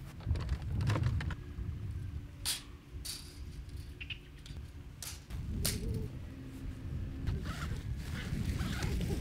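Sharp clicks and light metallic clatter from a folding camp table's frame being opened out and set up, over a low, steady rumble.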